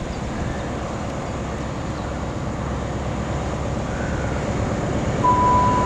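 Class 43 HST power car approaching with a steady diesel rumble that grows slowly louder. About five seconds in, its horn starts a long high note.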